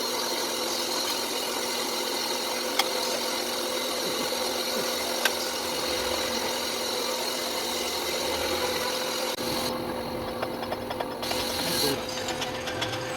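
An electric power tool's motor running steadily with a constant hum, working on metal, with a few sharp clicks. About ten seconds in the higher sound briefly falls away, then a run of small clicks follows.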